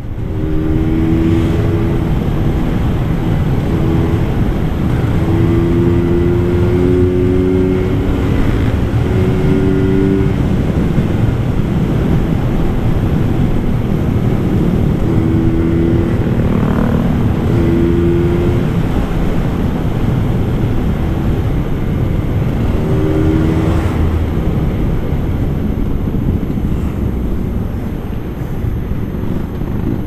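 Vintage Vespa scooter's two-stroke single-cylinder engine running hard on the road, heard from the rider's seat. Its note holds at one pitch, then settles at another as the throttle changes.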